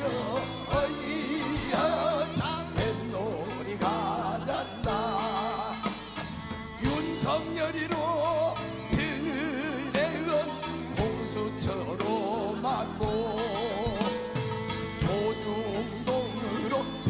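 Live Korean folk singing with a wide, wavering vibrato, over a band accompaniment with held notes and repeated drum strikes.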